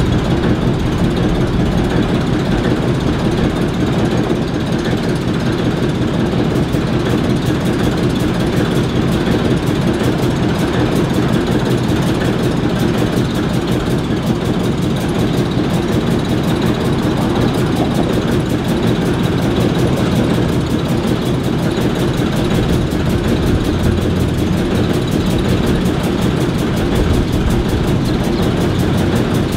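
Two ALCO diesel switcher locomotives, an S7 and an S4, each with a six-cylinder turbocharged 539 engine, idling steadily.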